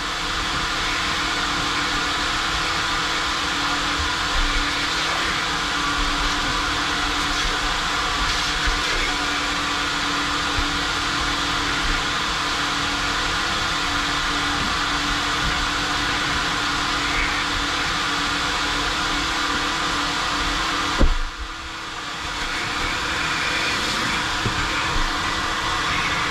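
Self-service car wash vacuum running with a steady rush and a low hum as it vacuums a car's interior. About 21 seconds in there is a knock, and the suction sound drops away briefly before building back up.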